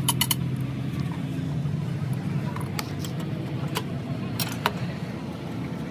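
Scattered sharp metallic clinks from the clamps of a flexible reinforced rubber hose being worked onto a pipe in a truck's engine bay, a pair at the start and another pair late on. A steady low hum of background noise runs underneath.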